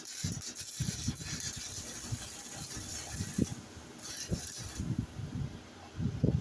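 Short-circuit MIG welding arc crackling during a test bead run to set the machine for thin tubing. It stops about three and a half seconds in and strikes again briefly around four seconds, with scattered low thumps.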